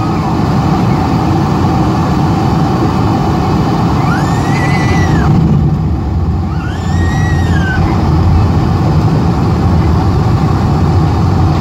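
Cabin noise of a Boeing 747-400ER during its landing roll: a loud, steady low rumble from the engines and the airframe on the runway. Two short high rising-and-falling tones cut through it, about four and seven seconds in.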